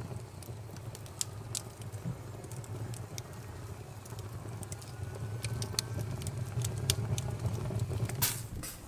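Fat dripping from a hanging pork shank onto wood embers in a brasero, giving scattered sharp pops and crackles over a steady low rumble of the fire, with a louder burst of hiss near the end.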